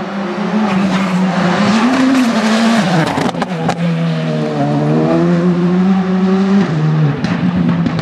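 Škoda Fabia R5 evo rally car's 1.6-litre turbocharged four-cylinder engine running hard at high revs, with a few sharp cracks about three seconds in. The pitch then holds fairly steady and drops briefly near the end as the car drives away.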